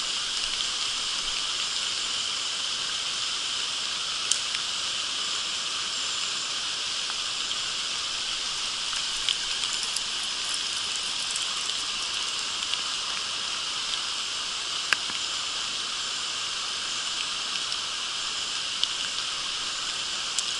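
Steady rushing hiss of a shallow, rocky creek running over riffles, with a few faint sharp clicks scattered through it.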